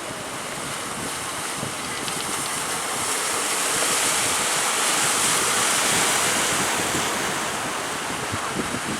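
Sea waves breaking and washing, with wind buffeting the microphone; the rush of water swells to a peak about halfway through and then eases.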